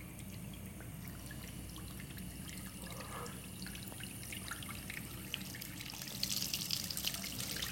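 A leaking pillar tap letting a thin trickle of water run and drip into a ceramic washbasin, with small irregular splashes. The trickle grows louder and splashier about six seconds in.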